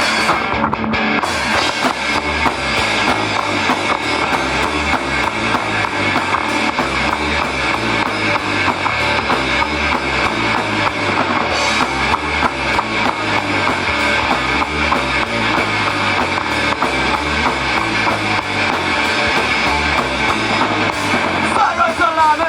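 Rock band playing live: a drum kit keeping a steady beat under guitar. A voice comes in near the end.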